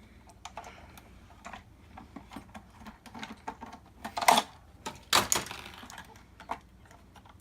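Plastic projector parts being handled and pried apart: scattered light clicks and rattles, with two louder plastic clacks about four and five seconds in.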